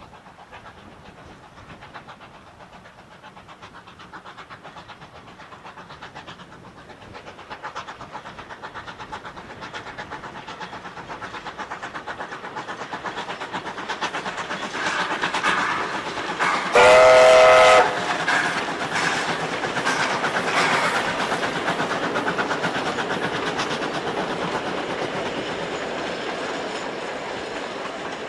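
Steam locomotive W22, a Beyer, Peacock-built W class, approaches and passes with rapid, even exhaust beats that grow steadily louder. Past the middle it gives one whistle blast about a second long, the loudest sound. The carriages then roll by with a clickety-clack of wheels that slowly fades.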